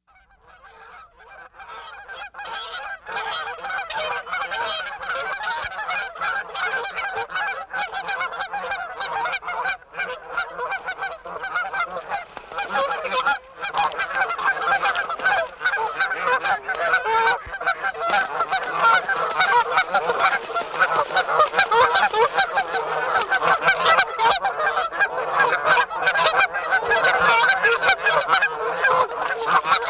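A flock of Canada geese honking, many overlapping calls in a continuous clamour. It fades in over the first few seconds and grows louder in the second half.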